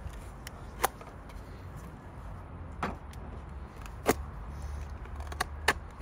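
Yellow utility knife cutting into a white sneaker. Sharp clicks come at irregular intervals, about five of them, over a steady low rumble.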